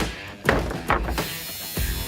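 Background music with a steady beat and sharp percussive hits, the strongest about half a second in.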